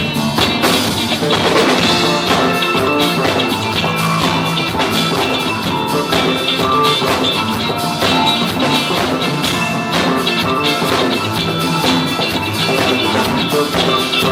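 Rock band playing, with drum kit and electric guitar carrying a riff of stepped notes over a steady beat.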